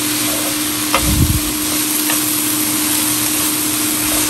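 Julienned jicama and carrot sizzling in a hot frying pan, a steady hiss with a low hum underneath. A couple of faint clicks from the stirring utensil come about one and two seconds in.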